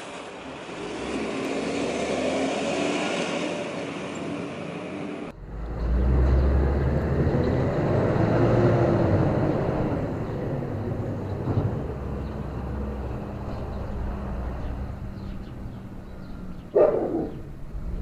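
Rubbish truck engine running, switching abruptly about five seconds in to a louder, deeper engine sound with a whine that rises and falls. A short, loud sound near the end.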